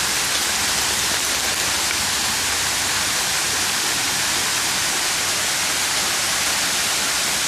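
Water pouring steadily down a man-made waterfall: an even, unbroken hiss of falling and splashing water.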